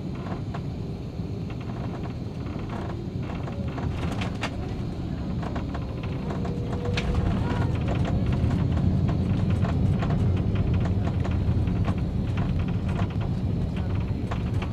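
Cabin noise of an Airbus A330-300 on landing: a steady roar of engine and airflow that turns into a heavier, louder rumble about seven seconds in as the airliner touches down and rolls out with its spoilers raised. Many small rattles and clicks from the cabin run through it.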